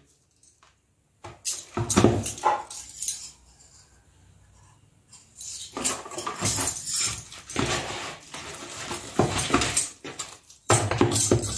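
Hand kneading soft maida dough in a plastic bowl, starting about a second in: irregular squishes and pats, with metal bangles clinking against each other and the bowl.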